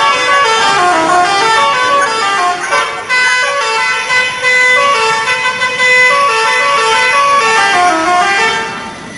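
Telolet musical horn playing its loud tune of short notes that step up and down in pitch. It fades away near the end.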